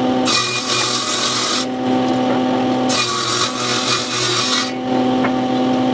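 A power tool's motor running with a steady hum, twice cutting into wood for about a second and a half each time, a loud rasping hiss during which the hum drops away.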